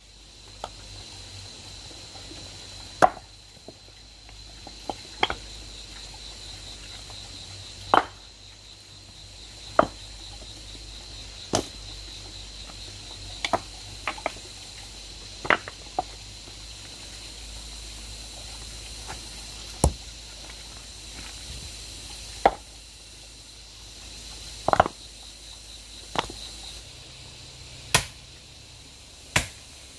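Sharp single chopping strikes of a blade into bamboo, coming at irregular gaps of one to three seconds, over a steady high-pitched whine in the background.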